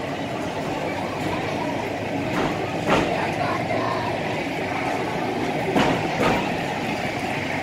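Metro-North commuter train passing close by at a station platform, a steady rumble of coaches going past. Sharp wheel clanks come in pairs, about 3 and 6 seconds in.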